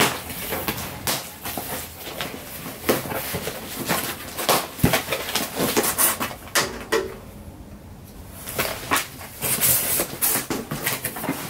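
Cardboard shipping box being opened by hand: its flaps pulled and the packing inside handled, in a quick run of scrapes, crackles and rustles, with a short lull about seven seconds in.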